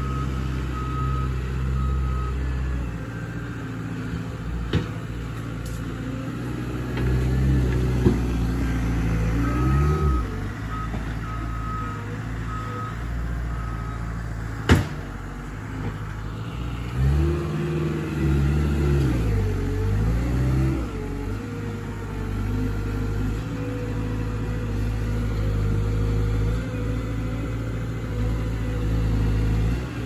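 Loader's engine running steadily while working at the hemlock, its pitch rising and falling twice as the load changes, with a backup alarm beeping in two spells. Three sharp knocks cut through, the loudest about halfway.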